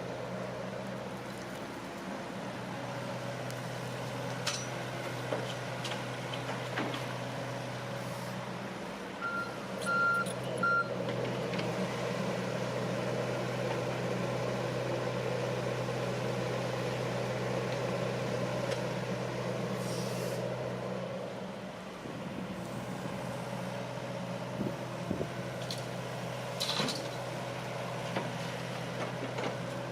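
Heavy diesel construction machinery running steadily, with a dip in engine level about two-thirds of the way through. About ten seconds in, three short high beeps sound, and a few brief clanks and hisses are scattered through.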